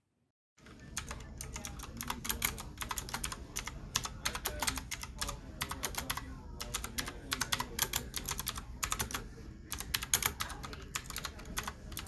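Fast typing on a typewriter-style mechanical keyboard with round keycaps and clicky blue switches: a dense, uneven run of sharp key clicks that starts about half a second in.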